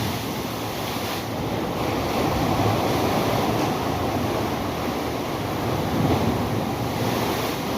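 Ocean waves washing steadily, with wind buffeting the microphone.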